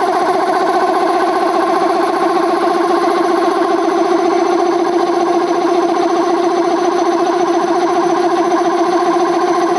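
Air compressor pump driven by a washing-machine motor, running steadily: a constant whining hum with a fast, even pulsing from the pump strokes.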